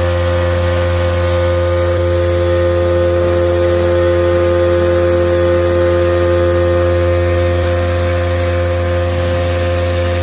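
Vibratory stress relief exciter, an electric motor turning an eccentric weight, running at steady speed while clamped to a steel plate and shaking it. It gives a steady loud hum with a clear higher tone over it.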